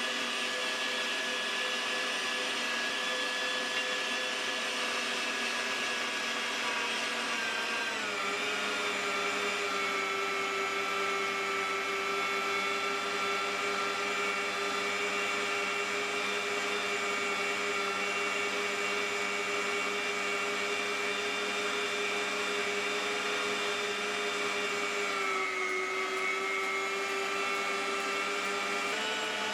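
Electric meat grinder running steadily with a motor whine as it grinds bars of soap. The pitch drops twice, about a quarter of the way in and again near the end.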